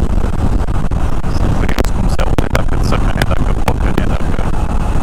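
Steady rush of wind and engine noise from a Suzuki V-Strom 650 riding at highway speed, picked up with the helmet visor closed, with a few sharp crackles of wind on the microphone in the middle.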